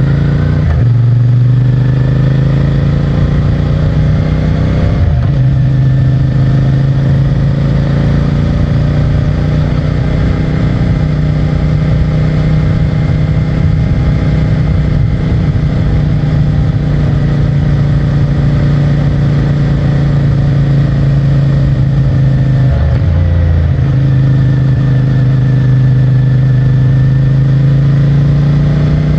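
CFMOTO 450MT's parallel-twin engine through its stock exhaust under way: revs rise, drop sharply at a gear change about five seconds in, then hold a steady cruising note that slowly swells and eases, with another brief change in engine note near the end.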